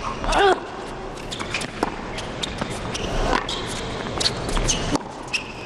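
Tennis rally on a hard court: a ball struck back and forth with rackets and bouncing, heard as a string of sharp pops, with a brief squeak about half a second in.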